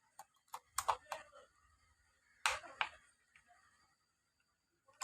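Handling noise: a few scattered sharp clicks and knocks, loudest about a second in and again about two and a half seconds in, with quiet gaps between.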